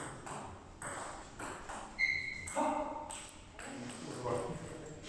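Table tennis ball clicking back and forth off the rackets and table in a fast rally, with a short high squeak about two seconds in.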